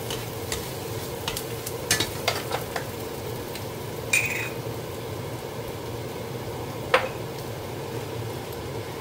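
Shiitake mushrooms and sliced onion sizzling in a frying pan while wooden spatulas stir them, tapping and scraping the pan in scattered clicks over a steady low hum. A short ringing clink comes about four seconds in, and a sharp knock near seven seconds is the loudest sound.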